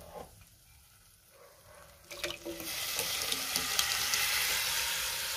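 Thick blended masoor dal poured into a steel pot of hot oil-and-spice tempering. About two seconds in, a loud rushing hiss starts as the dal hits the hot tadka, and it keeps hissing.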